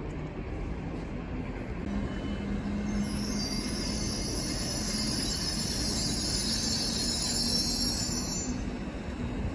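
Railway wheels squealing on the rails: a loud, high, steady screech that starts about three seconds in and cuts off suddenly near the end, over the low hum of a diesel engine and a steady rumble.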